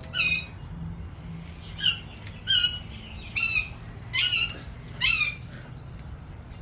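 Parrot squawking: about six short, harsh calls roughly a second apart.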